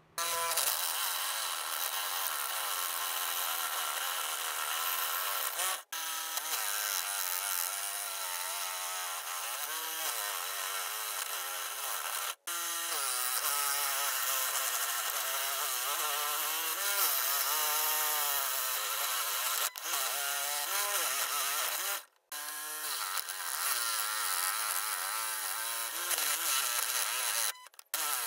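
Electric scroll saw running and cutting through a board of shisham wood, its pitch wavering as the blade works through the cut. The noise starts about half a second in and breaks off briefly a few times.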